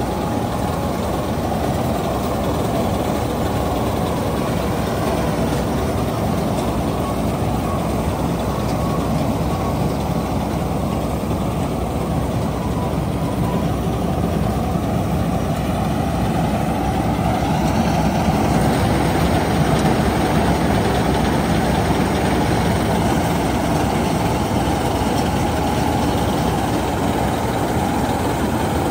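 Lovejeet Crop Star combine harvester running steadily as it cuts and threshes standing paddy: its diesel engine and harvesting machinery in one dense, unbroken noise, a little louder about two-thirds of the way in.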